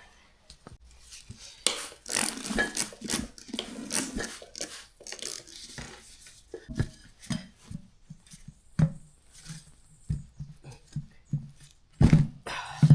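Metal tools clinking and scraping against a small lawn tractor wheel rim as a new tire is worked onto it, with a run of short knocks in the second half.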